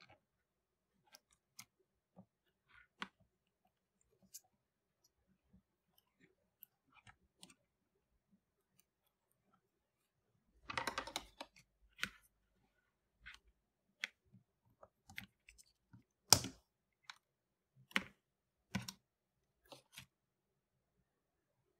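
Small clicks and light handling noise of wires and plastic connectors being fitted by hand, with a quick rattle of clicks about halfway and a few sharper clicks later on.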